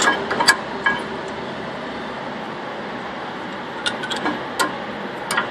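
New rear disc brake pads being seated in the caliper carrier bracket, their metal backing plates clinking against the bracket and its clips: a few sharp clinks near the start, then another cluster about four to five seconds in.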